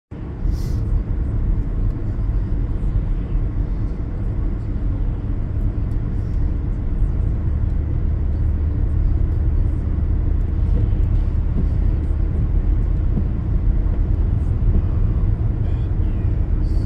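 Car driving on wet roads: a steady low rumble of road and engine noise, with scattered faint ticks.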